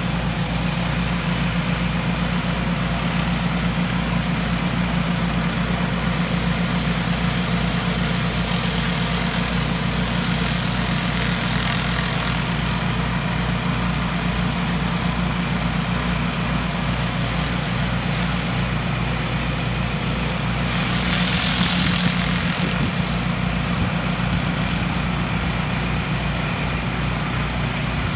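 Pressure washer engine running steadily, with the hiss of high-pressure water spraying under two rotary surface cleaners on concrete. The hiss swells for a couple of seconds about two-thirds of the way through.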